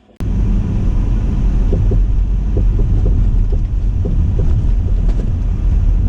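Car driving, with a steady low road rumble and wind noise that cut in suddenly just after the start.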